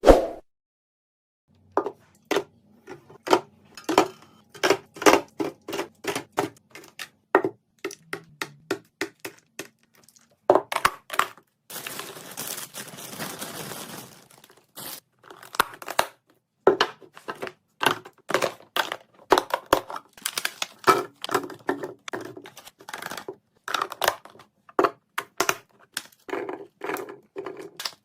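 Fridge-restock ASMR handling sounds: quick clicks, taps and clacks of containers and packaging being picked up and set down, with a couple of seconds of steady crinkling or rustling noise about halfway through.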